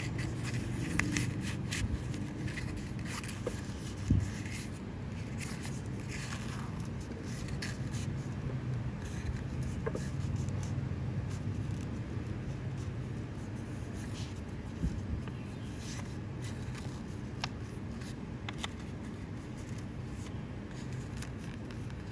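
A sheet of paper being rolled into a cone by hand: on-and-off rustling and crinkling, with a sharp tap about four seconds in. A steady low rumble runs underneath.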